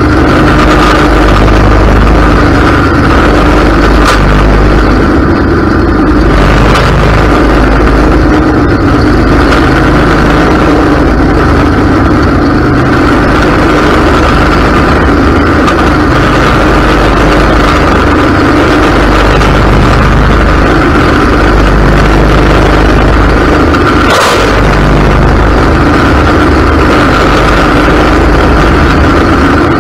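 Ariens riding mower's engine running steadily with its deck blades spinning, mowing through tall grass, heard very loud from right on the mower deck. One brief knock late on.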